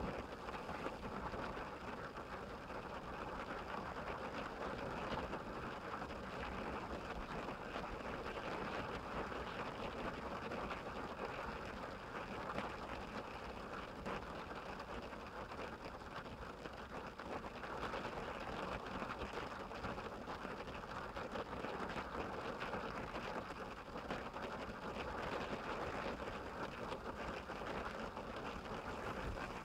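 Steady rain falling on a minivan's roof and windshield, heard from inside the cabin: an even hiss dotted with many small drop ticks.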